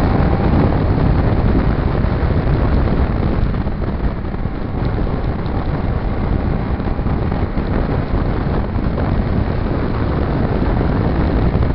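Steady wind rush over the microphone of a moving Kawasaki Ninja motorcycle, with the engine and tyre noise on wet road underneath.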